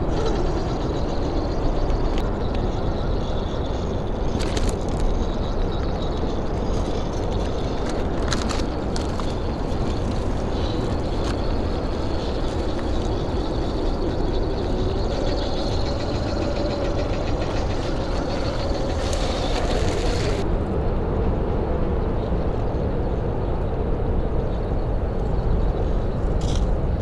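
Axial SCX10 III rock crawler's Hobbywing AXE540 brushless motor and gear drivetrain whining as it crawls slowly over dirt, with a steady low rumble underneath. A few short clicks are heard, and the high whine cuts off about twenty seconds in.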